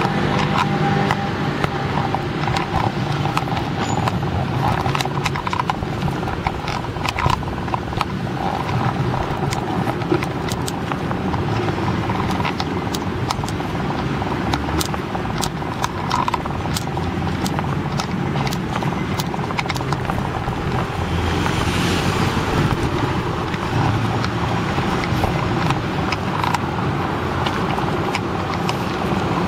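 Street traffic noise: a motor vehicle's engine runs steadily under a constant hiss, with many small clicks and knocks from handling.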